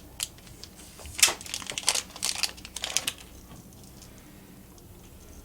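Hands handling earbuds and their packaging: a quick run of light clicks and rustles lasting about three seconds.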